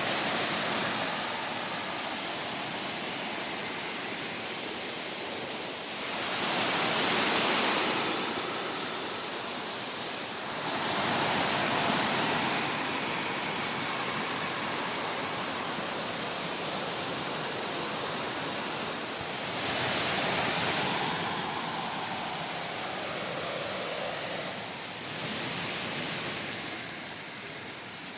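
Rushing water of a jungle stream and waterfall, a steady hiss with a bright high edge, swelling louder for a second or two four times.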